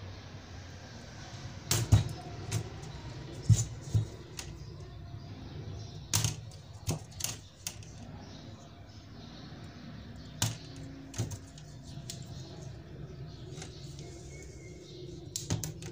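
Plastic clips of an LCD back-light panel's frame snapping and clicking as a flat metal blade pries them loose: a dozen or so sharp, irregular clicks, some in quick clusters, over a low steady hum.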